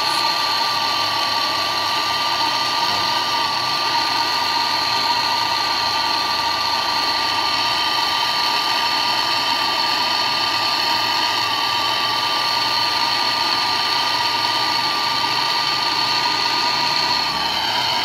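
Handheld gas torch burning steadily: a constant hiss of the flame with a steady whistling tone, as it heats an aluminium refrigerator tube for brazing.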